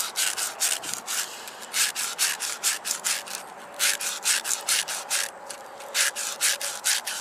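Hand scouring inside a small metal carburetor float bowl from a 9 hp Briggs & Stratton engine, scrubbing out rust: quick back-and-forth rasping strokes, about three or four a second, in runs with short pauses between them.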